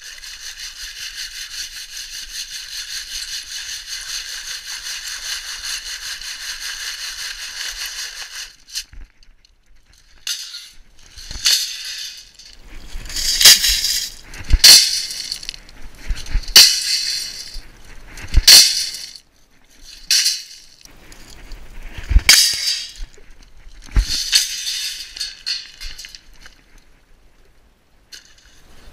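Gravel and stones rattling steadily in a sieve as it is shaken for about eight seconds. Then a string of about eight loud clattering crashes as the oversize rocks are tipped out onto a stone pile.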